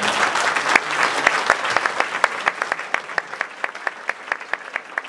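Audience applause, a dense patter of many hands clapping at first that thins out over a few seconds into fewer, separate claps at about four or five a second.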